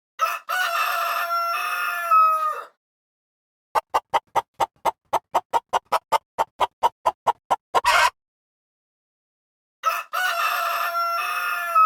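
Rooster crowing twice, each crow a long call that drops in pitch at the end. Between the crows comes a quick run of about twenty short clucks, roughly five a second, ending in a louder squawk.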